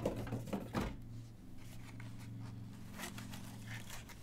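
Small clicks and rustles of hard plastic card holders being handled and lifted out of a foam-lined box, several in the first second and a couple more about three seconds in, over a steady low hum.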